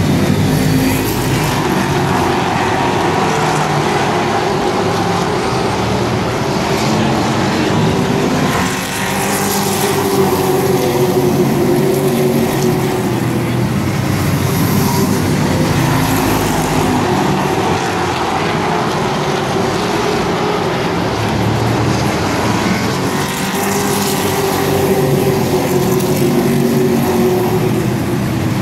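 A field of short-track race trucks running laps. The engine noise is loud and continuous, swelling and easing as the pack goes around the oval.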